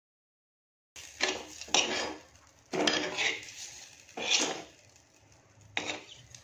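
A steel spoon scrapes and clinks against a clay pot as boiled eggs are turned in masala paste. It starts about a second in, with about half a dozen short scraping strokes.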